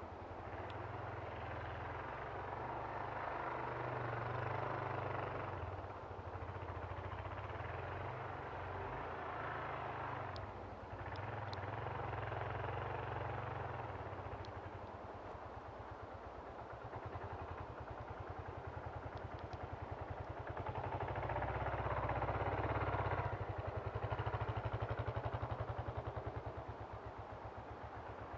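Kawasaki KLR650's single-cylinder four-stroke engine heard from a distance as the dual-sport bike is ridden through deep snow, its revs rising and falling in several surges as the throttle is worked.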